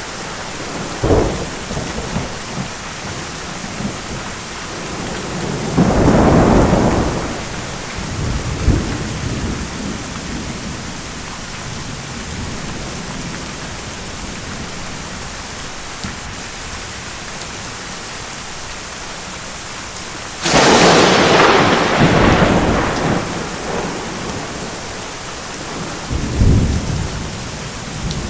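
Steady rain with thunder: a low rumble about six seconds in, a sharp, close thunderclap about twenty seconds in that rolls away over a few seconds, and a short rumble near the end.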